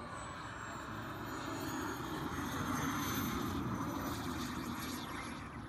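Turbine engine of a radio-controlled F-104 Starfighter model jet flying low past the field. A rushing jet noise carries a high whine that slowly falls in pitch, loudest about halfway through, then fading.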